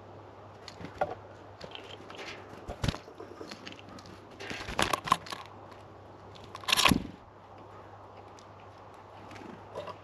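Small birds feeding at a seed feeder close to the microphone: irregular pecking, seed-cracking and scratching taps, with two louder, longer crunching bursts about halfway through and around seven seconds in.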